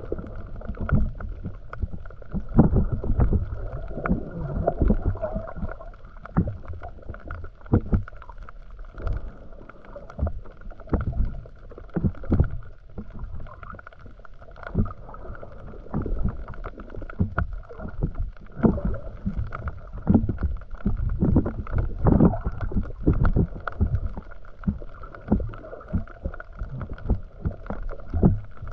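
Underwater recording from a camera in a waterproof housing: muffled rushing water with irregular low thumps as the water moves against the housing while the camera is carried along by a swimmer.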